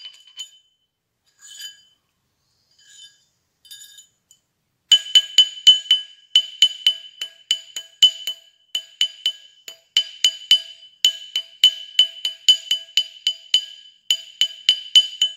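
Small hammer striking a brass ring on a ring mandrel, quick ringing metal-on-metal taps, to true the ring perfectly round. Only a few light taps at first, then steady hammering about four strikes a second from about five seconds in.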